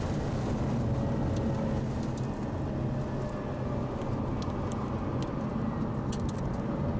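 Mazda RX-8's twin-rotor rotary engine running steadily under load at track speed, heard inside the cabin with tyre and wind noise, plus a few faint clicks.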